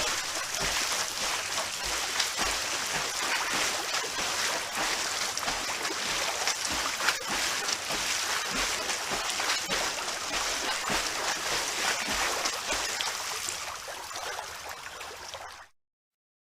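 Swimming in a pool: continuous splashing and sloshing water with many small splashes from the strokes, ending in an abrupt cut to silence near the end.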